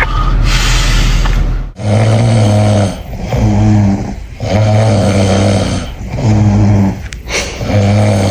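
Loud snoring: a rough, hissing breath at first, then a run of about five low snores, each about a second long, with short breaks between.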